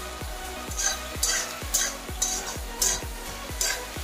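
A wooden spatula stirring and scraping duck curry with potatoes and green chillies in a black kadai, the meat sizzling in the oil, in about six scraping strokes.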